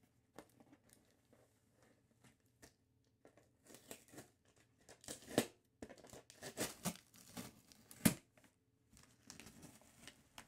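Tearing and crinkling of packaging as a shipping package is torn open, in short irregular rips that come sparsely at first and grow more frequent and louder from about the middle on.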